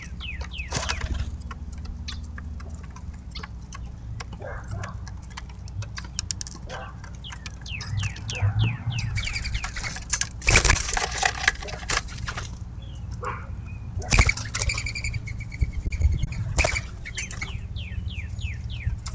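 Birds at a feeder: repeated short, falling chirps, and bursts of wing flapping from mourning doves taking off and landing, the loudest about ten and fourteen seconds in. A steady low hum runs underneath.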